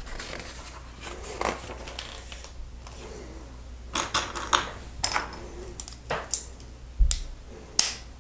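Plastic LEGO bricks and plates clicking and clattering as pieces are picked from a loose pile and pressed onto a build: about ten irregular sharp clicks, the loudest two near the end.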